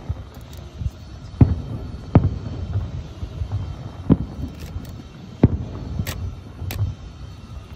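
Distant aerial firework shells bursting: about six deep booms at irregular intervals, each echoing briefly, over a continuous low rumble from the display.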